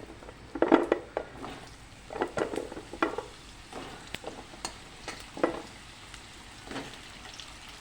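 Potato and raw papaya pieces sizzling as they fry in hot mustard oil, with a spatula stirring and scraping against the pan in short strokes every second or so.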